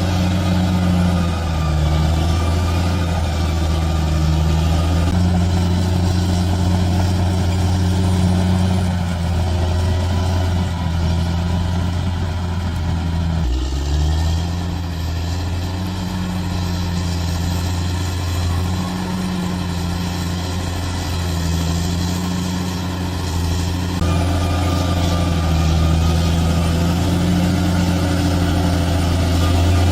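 Bulldozer's diesel engine running steadily, its deep note wavering slightly, with a brief break about halfway through.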